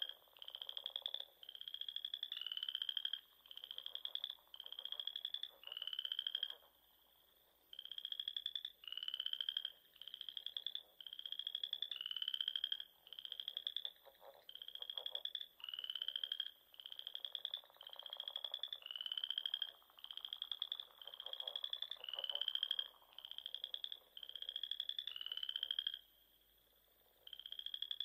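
A frog calling over and over: short, rising, rattling chirps, about three every two seconds, with two brief pauses.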